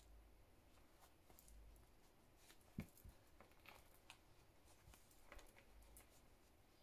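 Near silence with faint rustling and soft ticks of hand stitching, a needle and thread being worked through quilt fabric and wadding. There is one louder knock a little under three seconds in.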